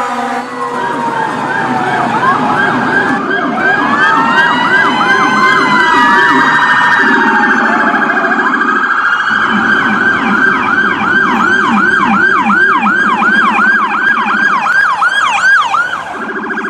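Electronic emergency siren, loud, with several tones layered: fast yelping sweeps repeating about three times a second over a lower warbling tone, and slower rising-and-falling wail glides in the first half.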